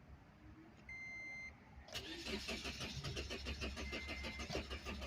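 A 2007 Scion xD's engine cranking over on the starter in a fast, even rhythm without catching, the sign of its no-start fault. A short electronic chime beeps about a second in, and again near the end.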